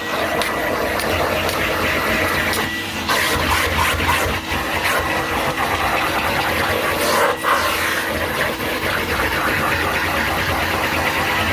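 1991 Numatic Henry vacuum cleaner running steadily, a constant suction rush with a steady hum, broken by a few brief knocks.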